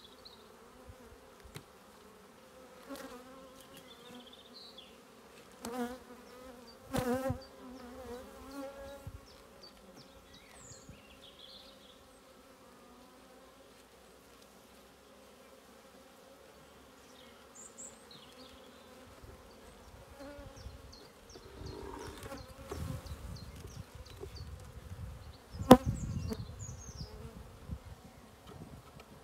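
Honeybee colony humming steadily in an open hive, with bees buzzing close past, their pitch wavering, about six and seven seconds in. In the last third there is wooden handling noise and one sharp knock, as a comb frame is prised free with a hive tool and lifted out.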